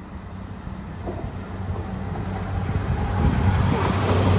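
Class 802 express train approaching on diesel power, its steady low engine hum and rail noise growing louder throughout.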